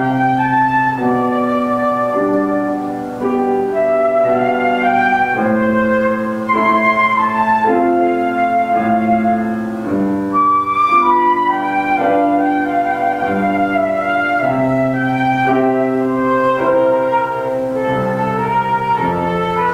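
Flute and grand piano duet: the flute plays a melody of held notes over a piano accompaniment.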